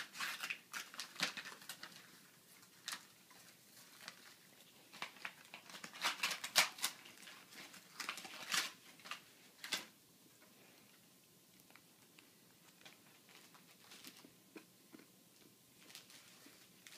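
Wrapping paper being torn and crinkled as a present is unwrapped, in a quick run of short rips and rustles over the first ten seconds or so, then only faint, occasional rustling.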